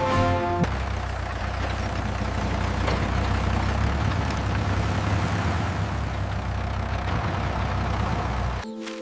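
Tractor engine sound effect running steadily, low-pitched with a noisy rattle over it, cutting off sharply near the end. A snatch of music plays at the very start.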